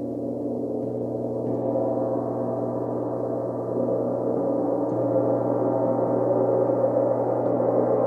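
Large rimless flat gong played with mallets: a dense, sustained, howling wash of many overlapping tones with no distinct strikes, swelling steadily louder.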